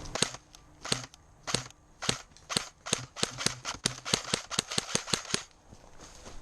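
Airsoft gun firing about seventeen single shots, slowly at first and then quickening to about four shots a second, stopping shortly before the end.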